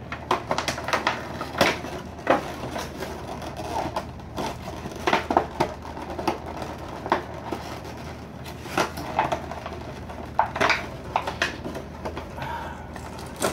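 Clear plastic packaging wrap crinkling and rustling as it is handled and pulled off by hand, in irregular crackles.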